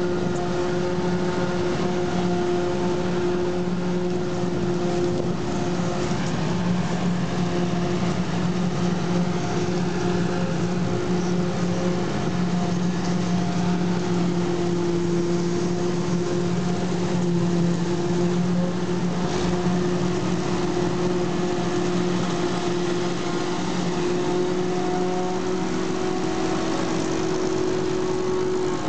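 Diesel engines of a farm tractor and a self-propelled forage harvester running steadily at constant speed as corn is chopped and blown into the tractor's trailer, an even mechanical drone.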